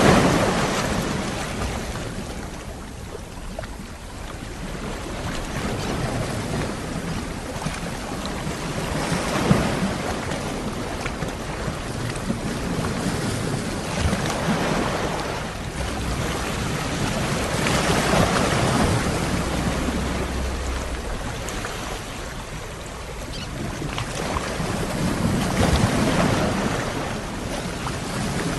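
Ocean waves breaking on a shore, each wash swelling and fading away every few seconds.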